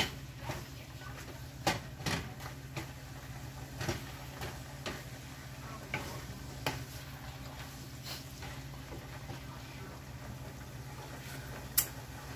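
Wooden spatula scraping and tapping against a pan while stirring ground beef and broccoli: irregular scrapes and taps every second or so, with one sharper knock near the end, over a steady low hum.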